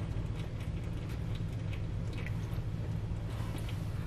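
Engine oil trickling and dripping from the oil filter mount of a 1969 Ford F-250 into a drain pan after the filter is removed, with small wet ticks over a steady low hum.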